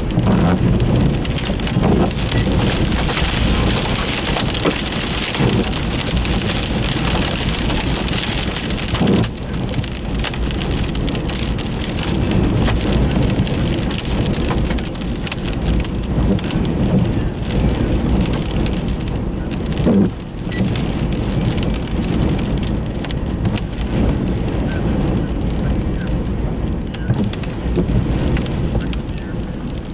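Dust-storm winds buffeting a vehicle, heard from inside the cabin. Blown dirt and debris pelt its body and windows in a dense, steady patter of small hits over a low rumble, with a few harder knocks.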